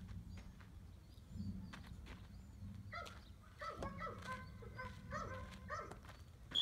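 Footsteps on dry dirt with a low wind rumble on the microphone. From about three seconds in, a faint high-pitched whine runs alongside them.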